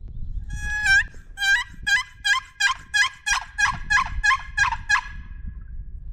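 A run of about a dozen loud, evenly spaced turkey yelps, about three a second, each note dropping in pitch at its end. They come from a hunter's turkey call, sent out to draw an answer from a gobbler heard nearby.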